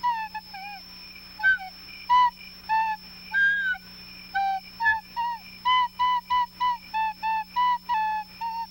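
A flute-like wind instrument playing a tune of short notes, about two or three a second, some notes sliding in pitch, over a faint steady hum and a high-pitched whine.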